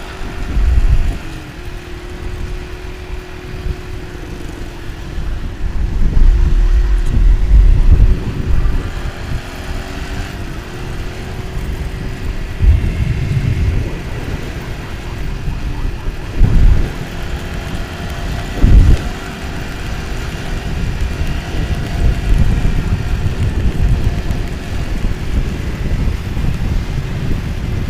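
Motorcycle engine running while riding, a steady, slightly wavering note over low road rumble, with several loud low surges along the way.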